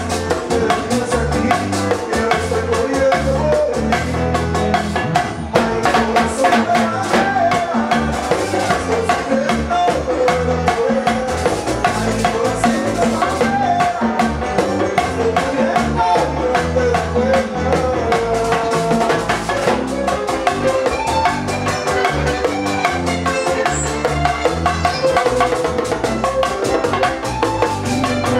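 Live Latin band playing with a steady beat: a male lead vocal over acoustic-electric guitar, congas, bongos struck with sticks, keyboard and bass.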